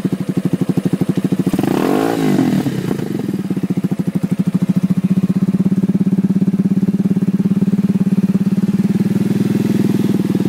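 Cleveland CycleWerks Misfit's single-cylinder engine running through an HMF stainless steel aftermarket exhaust. It gives one quick rev that rises and falls about two seconds in, then settles back to a steady idle. The carburetion is not yet fully dialed in.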